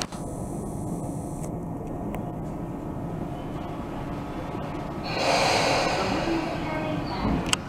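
Tobu 10000-series electric train standing at the platform with a steady hum, then about five seconds in a loud hiss of compressed air lasting about two seconds, typical of the air brakes releasing just before departure. A short click comes near the end.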